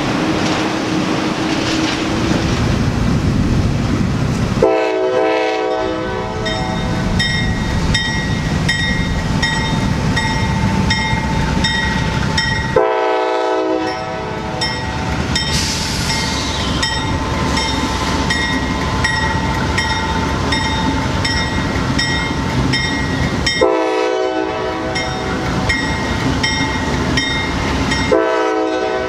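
Freight cars of a passing train rumbling on the rails. Then a diesel locomotive's air horn sounds four blasts, about five seconds in, near the middle, and twice near the end, the pattern sounded for a grade crossing. A grade-crossing bell rings rapidly and steadily underneath.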